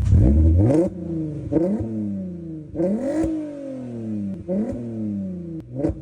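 Volkswagen Caddy's R32 3.2-litre VR6 engine revved in about five quick throttle blips, each rising sharply and dropping back toward idle.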